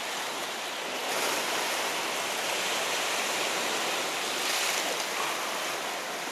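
Sea waves washing against shore rocks, a steady rushing wash that swells slightly about a second in.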